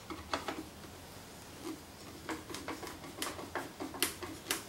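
Small irregular clicks and ticks, a few at first and then about four a second from about two seconds in, as a little screw on the underside of the plywood jig is tightened to lock it to the drill press table.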